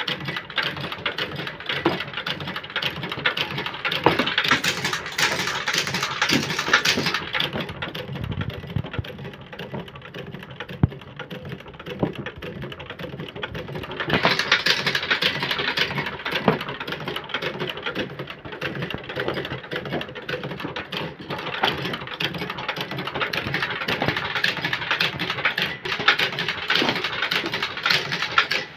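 Wire stitching machine stapling notebook spines: rapid repeated mechanical clicking with paper being handled, easing off for a few seconds near the middle.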